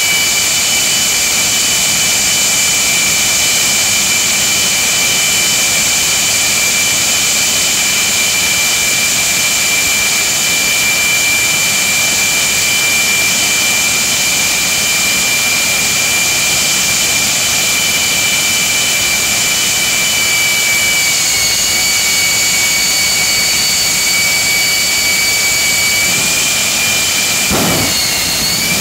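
Jet engine of a jet-powered Kenworth semi truck running with a steady high whine over a roar. Near the end the whine's pitch dips and wavers briefly.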